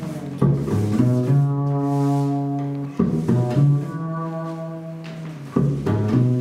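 Stand-up double bass played with the bow: a slow improvised line of long held low notes, a new note every second or two.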